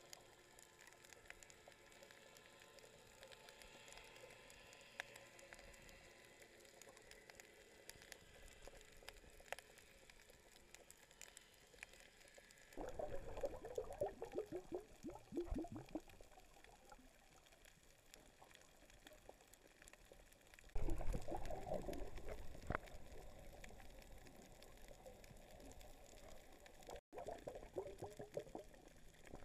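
Muffled underwater water noise picked up by a submerged camera, faint and steady, broken twice by louder bursts of bubbling, gurgling water: once about halfway through for about three seconds, and again about two-thirds through for about two seconds.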